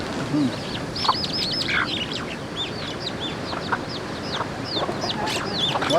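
Chickens with a chick and small birds around them: a rapid string of short, high peeps and chirps over a steady hiss.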